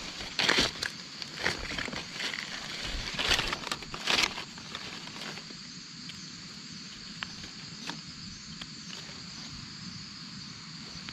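Dry leaf litter crunching and rustling in irregular bursts for about the first five seconds, over a steady high-pitched insect drone. After that the drone continues alone, with a few faint clicks.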